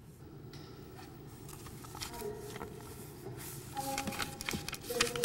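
Faint room noise with light rustling and a few scattered clicks, growing busier over the last two seconds, with the loudest click about five seconds in.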